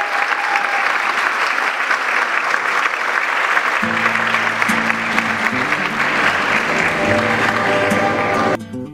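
Audience applauding steadily. About four seconds in, acoustic guitar music comes in underneath, and near the end the applause cuts off abruptly, leaving only the guitar.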